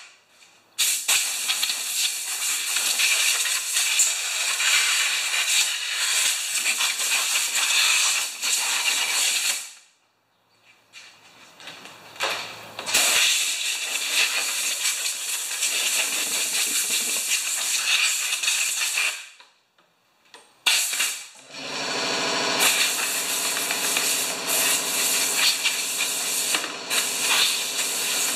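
Compressed air hissing from an air-hose blow gun in three long blasts of several seconds each, with short breaks between. About three-quarters of the way in, the air compressor starts and runs with a steady hum under the last blast.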